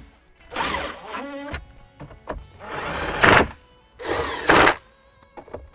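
Cordless drill-driver spinning in three short bursts, about a second apart, as it drives 7 mm screws into a pickup truck's dashboard bezel.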